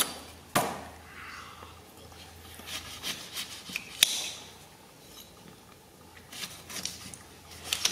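Kitchen knife cutting through the rind and flesh of a green orange in rasping, sawing strokes, with a few sharp clicks.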